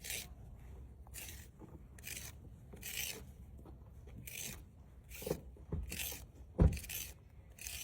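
Repeated short scraping strokes, about one a second, with a few low thumps, the loudest about two-thirds of the way through.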